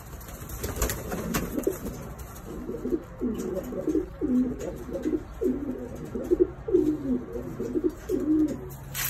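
Domestic pigeons cooing: a run of short, low coos, each bending in pitch, from about three seconds in until near the end.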